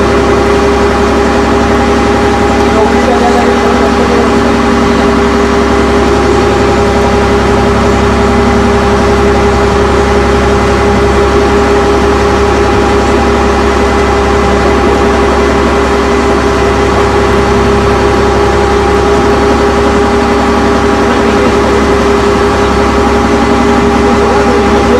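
Engine running steadily at constant speed: a loud, unchanging drone with a fixed pitch over a low rumble.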